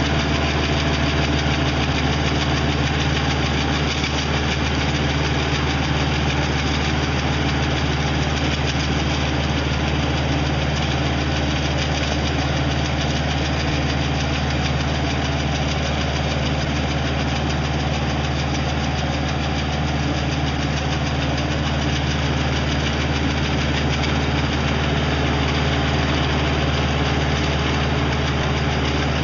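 Tractor engine and boom-mounted hydraulic brush trimmer running steadily as the cutter head works through bushes: a constant low drone that neither rises nor falls.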